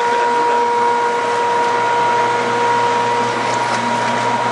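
Steady factory machinery running: an even mechanical noise with a constant high whine and a low hum, from the processing equipment of a snack-chip plant.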